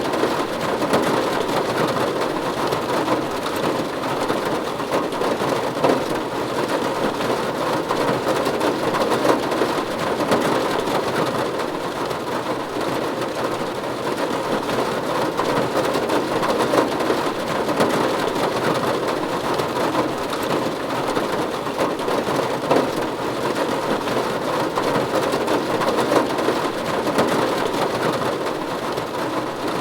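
Steady rain falling on a roof, a dense, even patter of drops.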